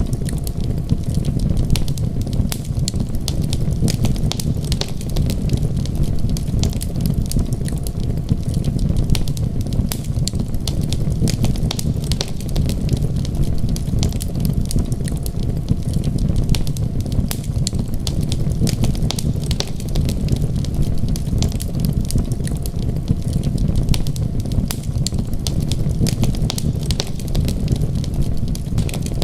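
Wood fire crackling, with many small sharp pops and snaps over a steady low rumble.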